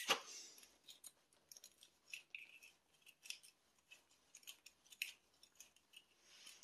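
Faint, irregular small metallic clicks and scrapes as a geyser's spring-loaded safety valve is adjusted by hand with a metal tool, with a sharper click right at the start.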